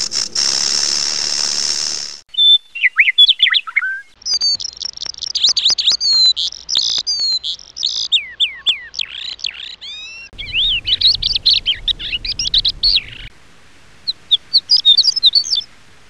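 Songbirds singing in several joined recordings: rapid runs of high chirps and sweeping whistled notes, with short breaks between the runs. A steady high hiss fills the first two seconds before the birdsong begins.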